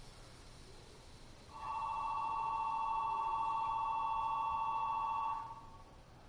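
Electronic station departure bell ringing steadily for about four seconds: a trilling two-tone ring, heard from inside a stopped train, that signals the doors are about to close.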